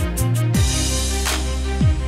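Background music with a steady beat: deep bass notes that slide down in pitch, quick ticking cymbals, and a crash about halfway through.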